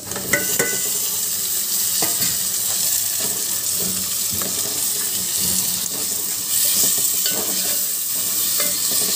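Sliced tomatoes and onions sizzling in hot oil in a metal pot, stirred with a metal spoon that clinks and scrapes against the pot, a couple of the clinks ringing briefly.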